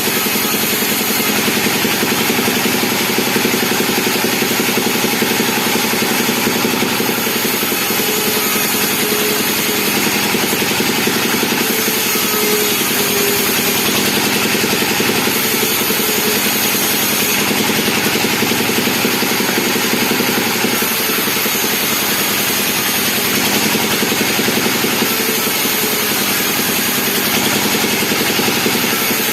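Chainsaw engine running steadily at a near-constant pitch.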